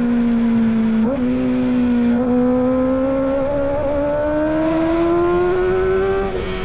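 Kawasaki Ninja ZX-6R inline-four engine running at high revs, its note climbing slowly and steadily in pitch, with small jumps about one and two seconds in.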